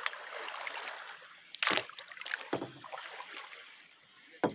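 Kayak paddle strokes in river water: a few short splashes, the loudest just under two seconds in and near the end, over a steady swish of water.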